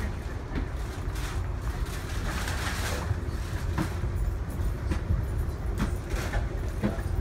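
Amtrak Coast Starlight passenger car rolling along the line, heard from inside the car: a steady low rumble, with irregular clicks and knocks on top.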